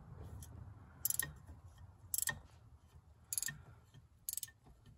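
A 13 mm flex-head ratcheting gear wrench clicking in four short bursts, about one a second, as its ratchet swings back between strokes loosening a fan-shield bolt.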